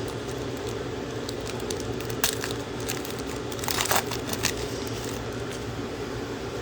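Trading-card pack wrapper and cards handled: a few short crinkles and clicks, the longest about four seconds in, over a steady room hum.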